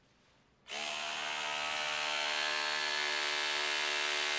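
Ryobi P222 18V cordless SDS-plus rotary hammer starting about two-thirds of a second in and hammering steadily at full power on a freshly charged battery, its bit driven against a steel test fixture.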